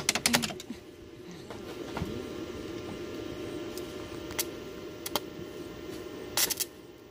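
A steady low hum from a running machine, with a few sharp metallic clicks and a short crackle about six and a half seconds in as a stick-welding electrode is touched to the steel frame before the arc is struck.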